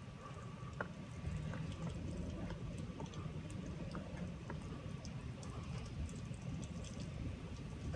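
Typhoon wind buffeting the microphone as a steady low rumble, with scattered light taps and ticks over it.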